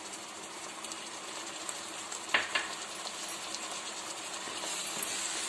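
Masala gravy sizzling steadily in a non-stick kadai, just after lemon juice has been poured into it, with a brief knock about two seconds in.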